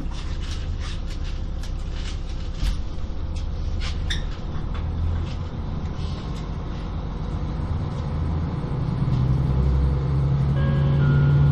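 KiHa 40 diesel railcar running: a steady low rumble of engine and wheels, with scattered short clicks. About nine seconds in, the engine note grows louder and steadier.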